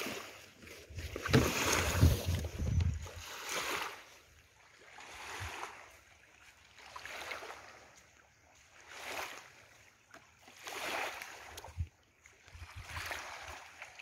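Small waves lapping on a sandy beach, a soft wash that swells and fades about every two seconds. Wind buffets the microphone in the first few seconds.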